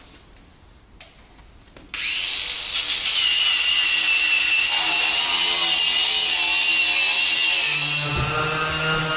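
A power tool starts abruptly about two seconds in and runs steadily with a high, slightly wavering whine over a hiss. Near the end a low steady hum comes in under it.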